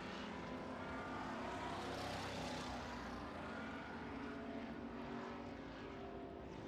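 Distant engines droning steadily, a faint mechanical hum with several held tones that eases off slightly toward the end.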